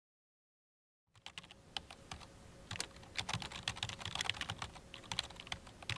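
Typing on a computer keyboard: quick, irregular key clicks that start about a second in.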